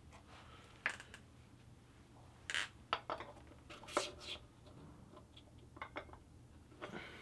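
Light metallic clicks and small scrapes of a steel piston ring being set into a cylinder bore of an aluminium Subaru boxer engine block and pushed square for an end-gap check. The clicks come scattered and irregular, a handful of them, busiest in the middle.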